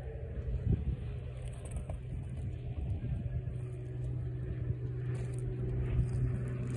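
Steady low hum of a running engine, with a few soft thumps about a second, three seconds and six seconds in.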